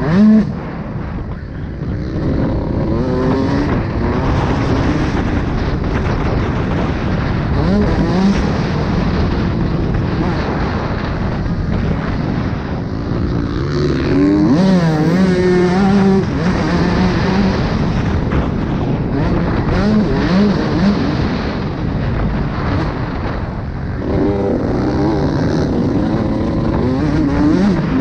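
Motocross bike engine running hard, its pitch rising and falling again and again as the rider revs through corners and straights, heard from on the bike itself.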